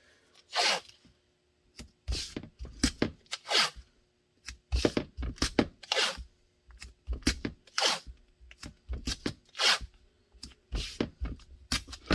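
Blue painter's tape being pulled off the roll and torn, in a run of about twenty short rips, as strips are laid and pressed down.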